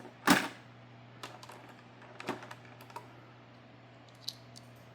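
Light plastic and metal clicks and taps of a die-cast toy car and its packaging being handled, with one louder, sharper click-and-rustle about a third of a second in, then a few scattered faint clicks.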